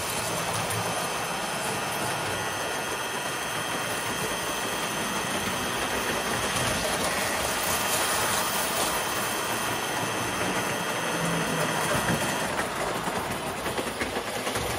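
Standard gauge electric toy steam locomotives running past on tinplate track: a steady whir of motors and gears with the clatter of wheels on the rails, easing briefly near the end as the track clears.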